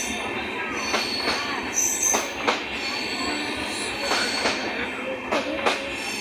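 Indian Railways LHB passenger coaches rolling past at close range as the train departs. Their wheels clack over a rail joint in quick pairs every second or two, over a steady rolling rumble with a thin high wheel squeal.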